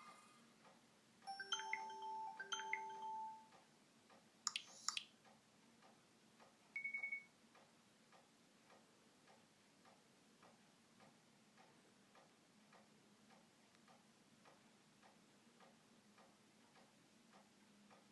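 Two short electronic beeps, two clicks and a brief high beep from a mobile phone, then faint, steady clock-like ticking a little more than once a second.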